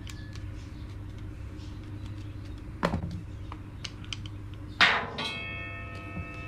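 A few knocks of a screwdriver and a Makita angle grinder being handled and set down on a metal workbench, the loudest about three-quarters of the way in, over a steady low hum. Just after that loudest knock a steady ringing tone of several pitches starts and carries on.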